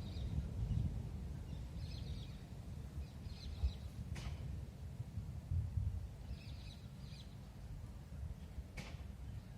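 Small birds chirping in short scattered bursts over a steady low rumble outdoors, with two faint sharp clicks, one about four seconds in and one near the end.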